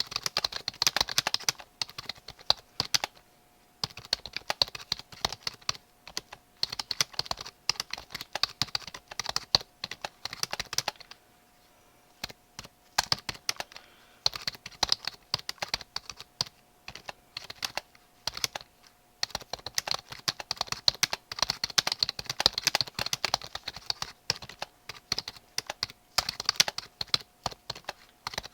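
Typing on a computer keyboard: runs of rapid key clicks broken by short pauses, the longest about eleven seconds in, over a faint steady hum.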